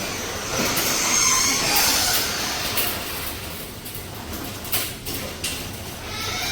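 Garage door moving along its tracks: a steady rattling rumble that eases off about halfway, with a few sharp clicks near the end.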